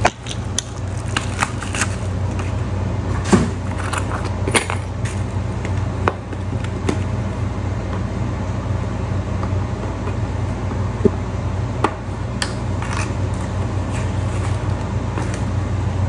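Steady low hum, with scattered light clicks and rustles as hands unpack a digital bathroom scale, peeling off a paper or plastic piece and handling the scale in its cardboard box.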